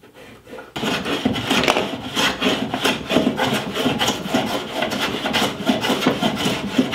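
Metal hand plane shaving the wooden jaw liners of a bench vise with repeated strokes, starting about a second in, taking down an uneven lip so the liners sit flush with the tabletop.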